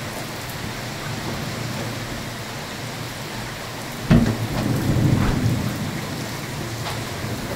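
Steady heavy rain during a severe thunderstorm. About halfway through comes a sudden loud crack of thunder that rumbles on for a second or two.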